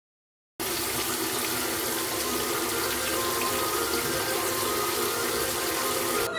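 Water running steadily from a faucet into a sink, starting abruptly about half a second in and cut off just at the end.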